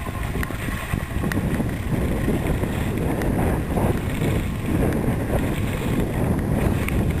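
Wind buffeting the microphone of a skier moving downhill: a steady low rumble.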